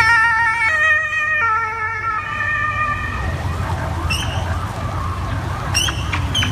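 Police motorcycle escort siren sounding a warbling electronic tone that steps down in pitch twice in the first second and a half, then fades over the next couple of seconds, with fainter wavering siren sound after it. A steady low rumble of engines runs underneath, and two short high chirps come near the middle and the end.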